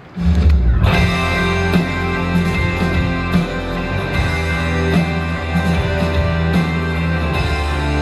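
Instrumental introduction of a slow ballad, with sustained bass and held chords. It comes in suddenly just after the start, and there is no singing yet.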